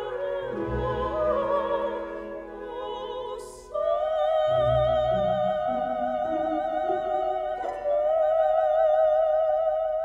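Classical music with an operatic voice singing; from about four seconds in the voice holds one long note with a wide vibrato.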